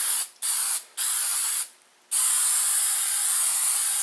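Aerosol spray-paint can hissing in short spurts, three in the first second and a half, then a half-second pause and one long, steady spray.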